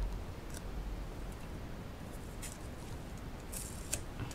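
Faint rustling of hands handling craft paper and tape: a few short rustles, the loudest near the end, over a low steady hum.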